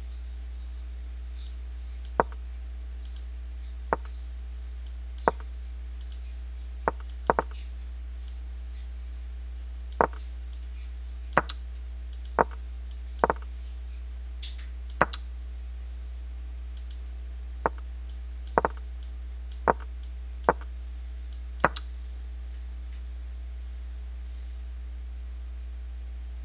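Computer mouse button clicking: single sharp clicks every second or few, irregularly spaced and a few in quick pairs, over a steady low hum.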